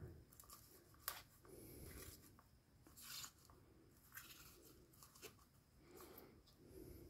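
Faint rustling and tearing of live moss being pulled apart by hand and pressed into clear plastic cups, with a few sharper crackles.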